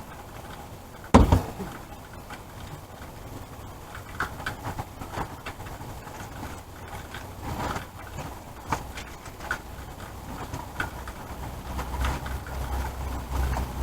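Handling noise from items being placed in a wooden blessing box: a single thump about a second in, then scattered light knocks and rustles. A low hum comes in near the end.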